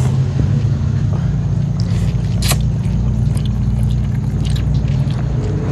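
People eating chicken noodles (mie ayam): slurping and chewing, with one sharp clink about two and a half seconds in, over a steady low hum.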